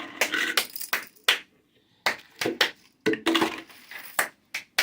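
Hands clapping: about ten sharp, irregularly spaced claps in small clusters.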